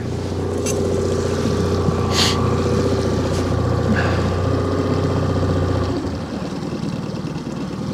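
Small tiller-steered outboard motor running steadily at trolling speed, a constant hum whose low part eases off about six seconds in. A couple of brief rustles come about two and four seconds in.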